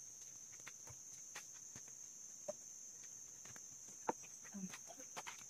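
Steady high-pitched chirring of insects, with faint scattered clicks and knocks, most of them around four to five seconds in.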